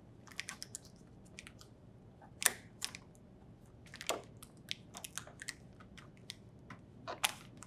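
Adhesive tape being pulled, torn and pressed on: a scatter of short crackles and snaps, the loudest about two and a half seconds in.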